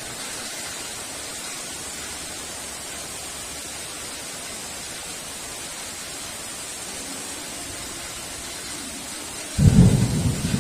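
Heavy rain falling steadily, then a sudden loud rumble of thunder breaking in near the end.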